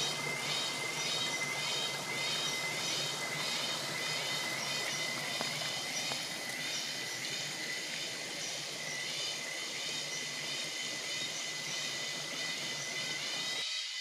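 Cicadas calling in a pulsing rhythm, about two to three pulses a second over a steady high whine, with the rush of a small stream spilling over rocks beneath. The water sound stops shortly before the end, leaving the cicadas.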